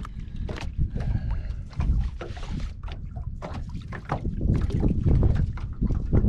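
Irregular thumps, slaps and knocks in a boat as a freshly landed barramundi is handled on a wet bag mat for measuring, over a low rumble; the knocking gets busier and louder about two-thirds of the way through.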